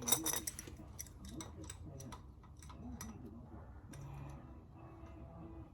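Irregular light clicks and taps, with a sharper cluster of clicks right at the start.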